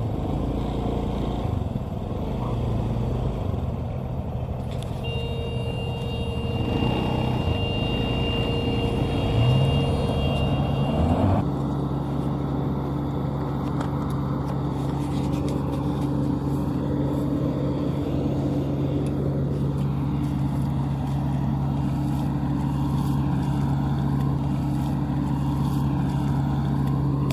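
Heavy diesel machine engine running steadily. About eleven seconds in the sound changes abruptly to an even, steady hum.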